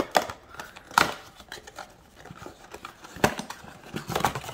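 Cardboard trading-card box being handled and opened by hand: a few sharp clicks and taps as the flaps are pulled and folded open, with soft cardboard rustling between them.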